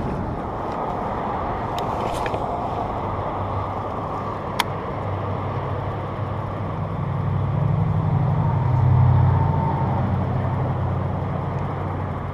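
An engine drones steadily with a low hum, grows louder about seven seconds in, peaks near nine seconds, then eases off. A single sharp click comes near the middle.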